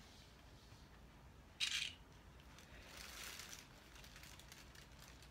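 A nylon cable tie pulled tight through its ratchet, a short sharp zip about a second and a half in, then soft plastic rustling from handling the ties.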